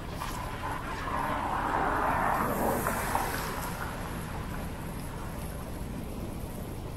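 A car passing on a wet road: its tyre noise swells for about two seconds and fades, over a steady low rumble.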